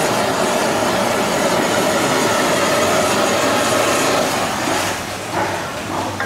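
Fish fillets sizzling in oil on a hot flat-top griddle, a dense steady crackle that eases off a little near the end.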